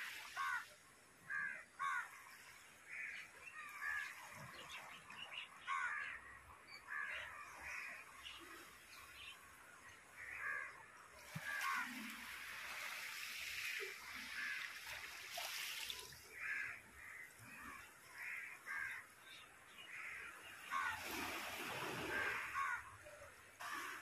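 Crows cawing over and over in short harsh calls. A rushing noise swells up twice, about halfway through and again near the end.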